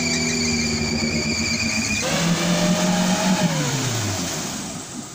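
Lifted Suzuki Jimny 4x4's engine revving hard and held at high revs while its tyres spin in slippery mud. About two seconds in the note drops to a lower held pitch, then the revs fall away near the end.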